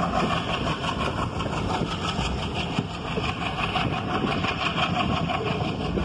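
Steady running noise of a passenger train in motion, wheels on the rails and carriages, heard from aboard.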